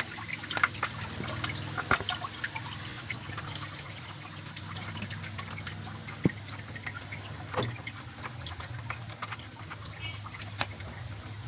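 Flush water dripping and trickling from a car radiator's drain while the drain screw is tightened by hand, with scattered small drips and clicks over a low steady hum.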